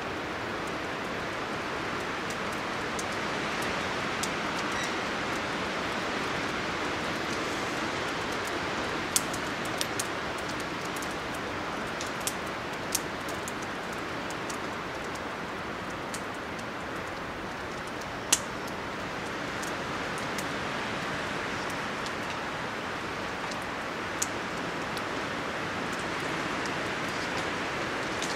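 Steady rushing noise with about seven or eight sharp ticks scattered through it, the loudest near the middle.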